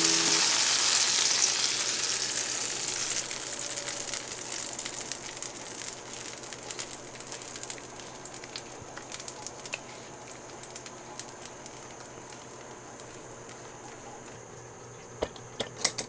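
Dutch puff batter poured over blueberries in a hot cast-iron skillet, sizzling loudly at first and dying down over several seconds. A few light clicks near the end.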